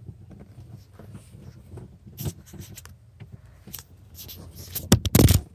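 Handling noise under a car's dashboard: faint scrapes and clicks, a sharper click a little after two seconds, then a louder rough scuffing rub near the end.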